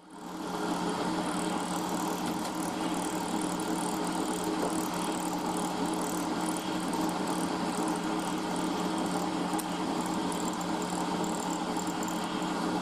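Milling machine with an end mill cutting a slot in metal: a steady spindle hum under a continuous rough, chattering cutting noise. The noise cuts off abruptly at the end.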